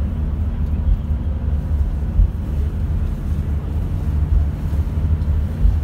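Coach engine and road noise heard from inside the passenger cabin while the coach is driving: a steady low drone.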